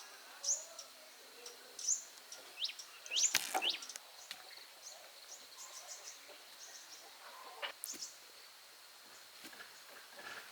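Wild birds chirping, short rising high calls about once a second in the first few seconds and fewer after, with a sharp knock about three seconds in.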